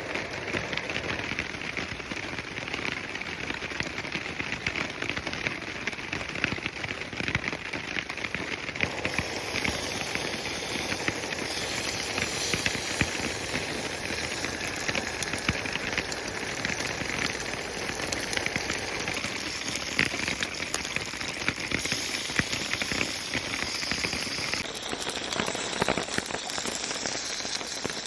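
Pork belly sizzling in a hot pan: a steady crackling hiss thick with small spits and pops of fat.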